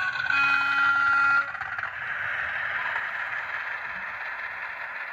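DCC sound decoder in an OO gauge model Class 50 diesel locomotive, played through the model's small speaker. A horn note sounds for about a second near the start, then the recorded English Electric diesel engine sound runs on steadily.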